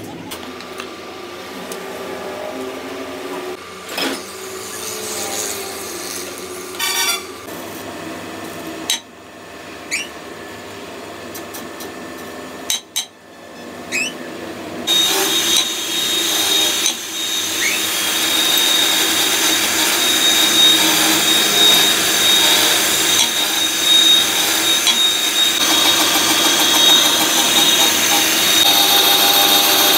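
Metalworking tools in a workshop: scattered knocks and clicks for the first half, then a power tool starts about halfway in and runs steadily with a high whine.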